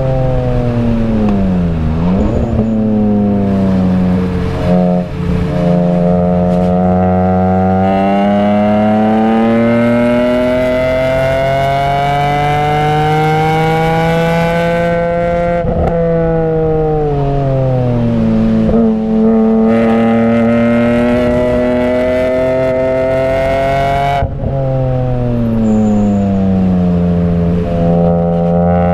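BMW E46 M3's 3.2-litre S54 straight-six, heard from inside the cabin at full throttle and on the brakes. Its pitch falls to a low point about two seconds in, then climbs steadily for some twelve seconds to over 6,500 rpm. It drops sharply, sinks as the car slows, climbs again, cuts off suddenly near the three-quarter mark and falls again as the car brakes for the next corner.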